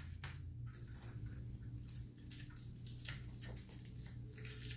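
Faint clicks and scratches of small fingers working at a hollow plastic toy ball, prying a tiny item out of it, over a low steady hum.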